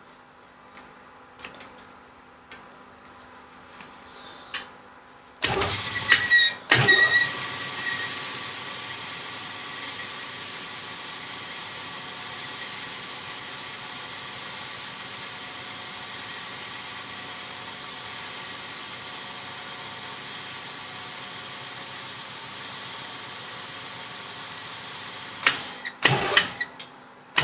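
A few light clicks, then a honing machine starts suddenly about five seconds in and runs steadily with a high whine before stopping with a few knocks near the end. The hone is working a cylinder bore of a Perkins 248 block, taking off the last fraction of a thou to reach finished size.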